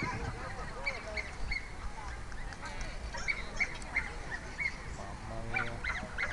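Dogs barking in short, high-pitched yaps, one after another, with several overlapping at different pitches.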